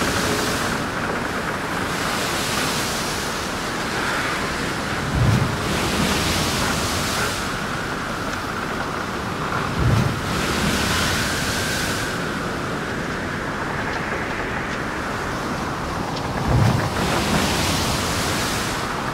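Stormy lake sound: a steady rush of wind and water, with waves swelling and breaking every four to five seconds, a thin whistle of wind, and three low thuds.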